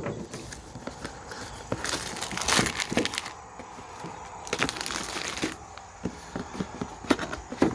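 Packaging being opened and handled: crinkling and rustling, with tearing and scattered clicks and knocks, in two longer bursts near the middle.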